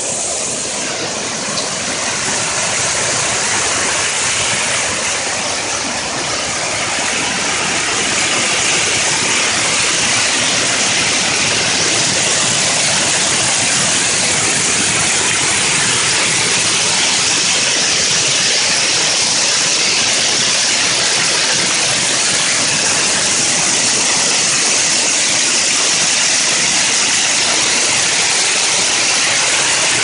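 Whitewater of a river cascade pouring over rocks and a small dam weir: a loud, steady rush of falling water, a little louder from about eight seconds in.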